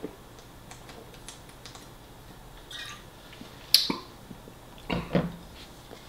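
Glass drink bottle set down on a hard surface with one sharp clink about four seconds in, followed by a couple of duller knocks, among quiet small handling clicks.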